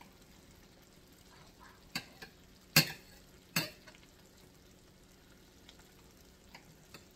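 Knife and fork clinking against a ceramic plate while slicing a cooked steak: three sharp clinks between about two and four seconds in, the middle one loudest, over a faint steady hiss.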